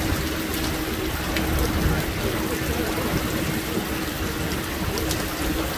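Heavy rain pouring onto wet tarmac, a steady hiss, with wind rumbling on the microphone.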